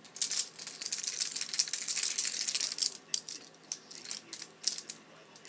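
Plastic baby toy keys on a ring rattling and clacking: a quick, busy clatter for about three seconds, then a few scattered clicks.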